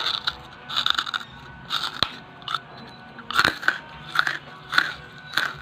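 Lump charcoal being bitten and chewed close to the microphone: a string of sharp, crisp crunches, about two a second.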